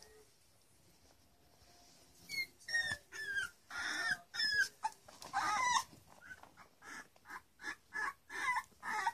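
Three-week-old Pembroke Welsh Corgi puppies squeaking and whimpering: high whines that bend up and down in pitch start about two seconds in, then give way to a quicker string of short squeaks near the end.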